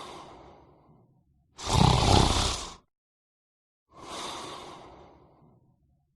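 A person snoring: one loud, rough snore about two seconds in, between softer breathy breaths that fade away.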